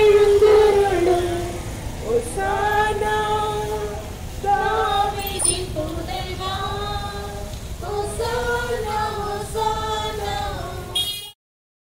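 A crowd in procession singing a hymn together, mixed voices in long held phrases, with a low rumble of street or wind noise underneath. The sound cuts off abruptly near the end.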